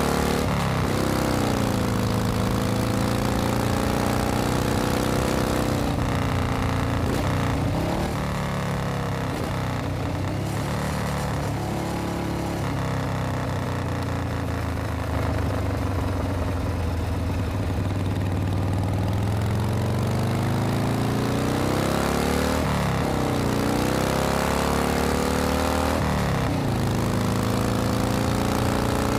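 A motor vehicle engine running on the road, its pitch dipping and climbing back up several times as the revs change.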